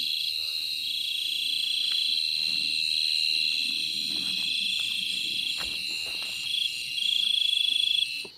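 A cricket calling close by in pulsed trills, broken by short gaps and loudest near the end, over a steady high-pitched chorus of other night insects. Faint rustles and taps underneath.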